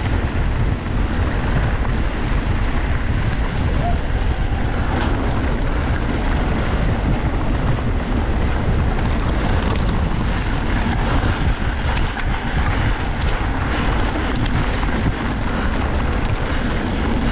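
Wind buffeting the microphone over the rumble of a mountain bike's tyres on a rough trail at racing speed. Scattered rattles and clicks from the bike come through in the second half.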